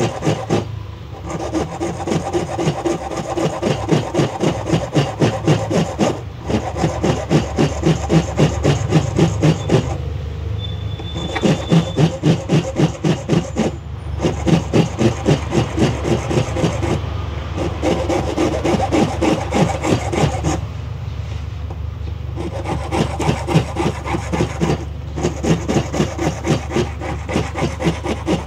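Hand file rasping on the edge of an acrylic amulet frame, in steady back-and-forth strokes about three a second, stopping briefly several times.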